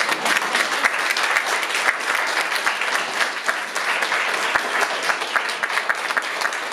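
Audience applauding: many hands clapping at once, steady and dense.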